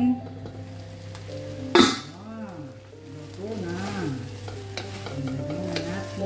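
A pan of pancit bihon being stirred while it sizzles, with one loud, sharp clank about two seconds in and a few lighter clicks later.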